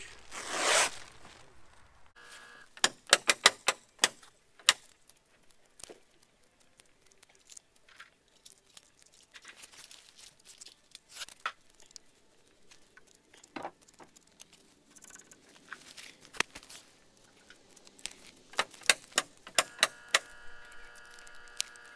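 Foam backer rod being worked by hand into a gap under a wooden sill plate: sharp clicks and crackles in clusters, a burst about three seconds in and another near the end, with scattered single ticks between.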